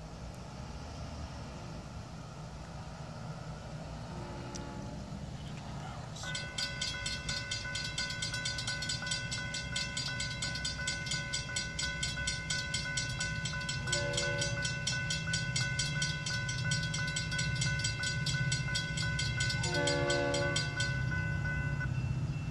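Diesel freight train approaching with a rumble that grows louder, its horn giving short blasts about four and fourteen seconds in and a longer blast near the end. About six seconds in a railroad crossing bell starts ringing rapidly and evenly, stopping shortly before the end.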